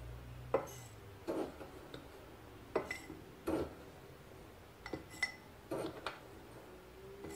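Spoonfuls of bone glue pearls tipped into a small glass jar, each giving a short rattle and clink of spoon on glass, about one a second, some with a brief glassy ring.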